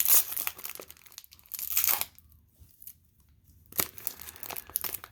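Wrapper of a trading-card pack crinkling in short bursts as it is handled, with a quiet gap of about a second and a half in the middle.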